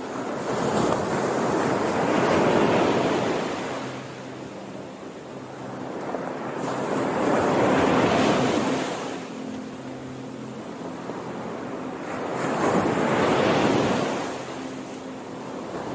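Ocean waves breaking and washing in, in three slow swells that each rise and fall over about five seconds.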